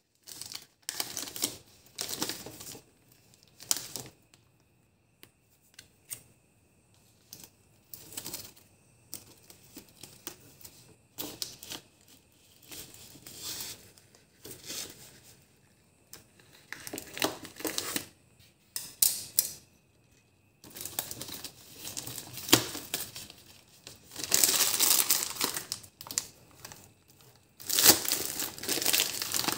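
Crinkling and rustling handling noise in irregular bursts with small clicks, loudest near the end.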